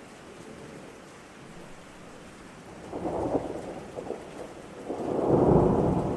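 Steady rain with thunder: a rumble about three seconds in, then a louder, longer roll of thunder from about five seconds in.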